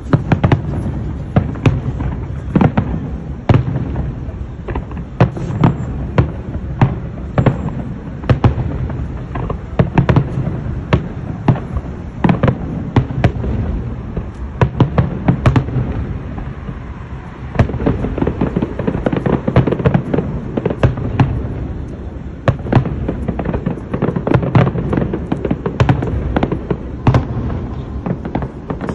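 Aerial fireworks display: many sharp bangs in quick, irregular succession over a continuous low rumble, easing briefly a little past halfway before picking up again.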